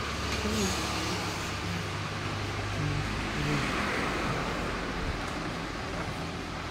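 A steady low hum with an even hiss over it, and a few short faint tonal blips.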